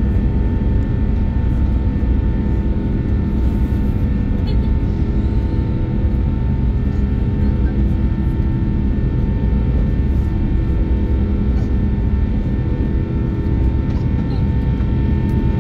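Inside the cabin of an Airbus A350-900 climbing after takeoff: its Rolls-Royce Trent XWB turbofan engines run at climb thrust, a steady deep rush of noise with several steady humming tones on top.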